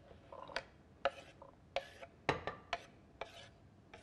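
Knife scraping and tapping on a cutting board: about seven short scrapes and knocks at uneven spacing, as chopped garlic and onion are pushed off the board into the pan.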